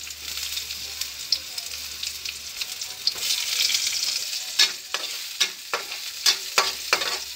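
Garlic and chopped red onion sizzling in hot oil in a metal wok. From about halfway through, a metal spatula stirs and scrapes against the pan in a run of sharp clicks.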